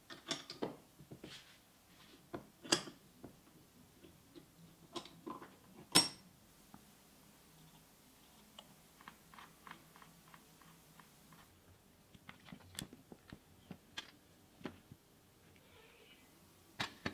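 Scattered clicks and knocks of metal and plastic parts being handled while a cordless rotary hammer drill is taken apart, with one sharper knock about six seconds in.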